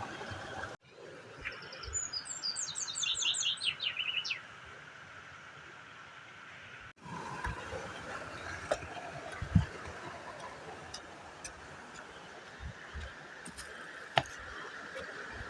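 A songbird singing one quick run of short, clear notes that step down in pitch and lasts about a second and a half. It sits over a steady outdoor hiss, with a few faint clicks later on.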